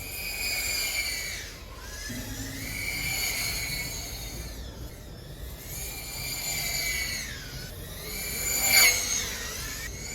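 Tiny whoop drone's brushless motors whining at high pitch, the pitch dipping and climbing again several times as the throttle changes. There is one sharp knock near the end.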